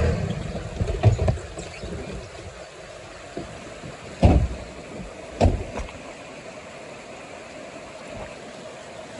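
A vehicle's idling engine shuts off at the start, then several sharp thumps come, a pair about a second in and louder ones around four and five and a half seconds in, over the steady rush of floodwater from a creek out of its banks.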